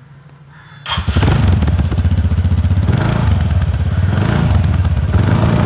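Motorcycle engine running close by, starting suddenly about a second in with a steady, rapid pulsing beat.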